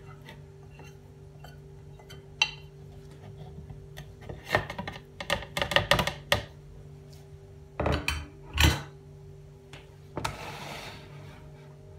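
A utensil scraping and knocking against a plastic tray and the rim of a food processor's plastic bowl as ground spices are tipped in: scattered taps, with two clusters of clatter about four to six and eight to nine seconds in. A short rubbing, sliding sound follows near the end.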